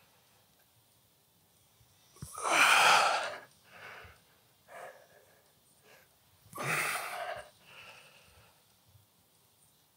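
A man breathing out hard in a loud, airy rush on each rep of a staggered-stance dumbbell Romanian deadlift, twice about four seconds apart, with quieter short breaths between.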